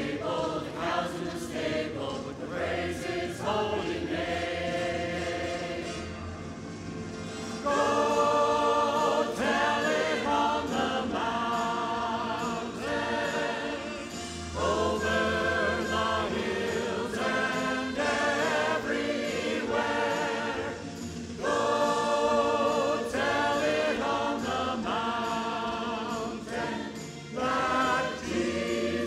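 Mixed choir of men and women singing a song together, the phrases swelling louder several times.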